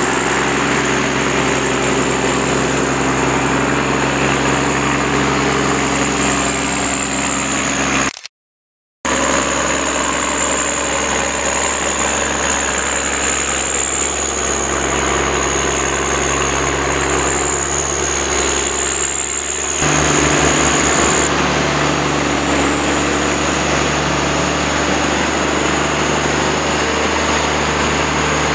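John Deere 1110D forwarder's diesel engine running steadily under a steady high-pitched whine, broken by a brief dead silence about eight seconds in. About twenty seconds in the engine note shifts lower and gets slightly louder.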